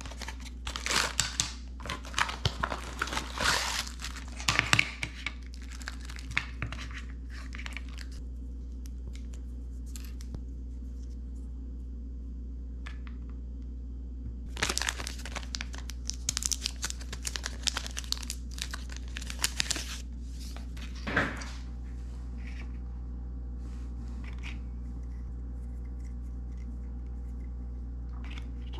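Cardboard box and plastic or foil wrappers of a rapid antigen test kit being handled and torn open, crinkling and tearing in two spells: over the first eight seconds and again from about fifteen to twenty-one seconds in. A steady low hum runs underneath.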